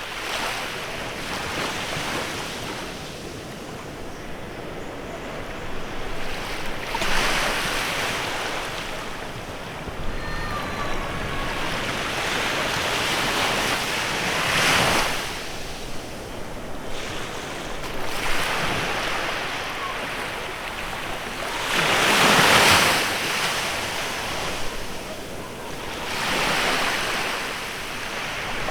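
Waves breaking and washing up on a beach, surging and falling back every seven or eight seconds, with the loudest surge about two-thirds of the way through.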